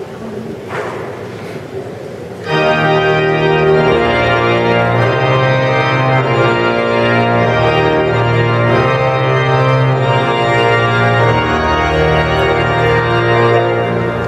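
Cathedral pipe organ comes in about two and a half seconds in with loud sustained chords that change slowly, ringing in the large stone space; before it enters there is only a quieter background.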